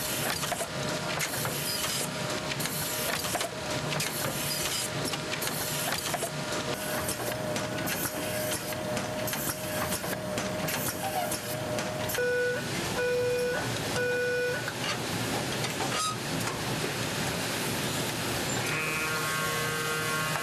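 Banknote processing machinery running, stacking and banding $100 notes, with a fast, continuous mechanical clatter. Three short beeps about a second apart sound near the middle, and a steady hum joins near the end.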